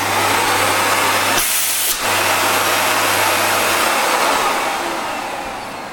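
Miele S5210 canister vacuum cleaner running on its newly fitted motor, a steady even whoosh of suction with a faint hum, which the repairer calls smooth as silk. About a second and a half in, it briefly turns to a higher hiss, and it gradually eases off near the end.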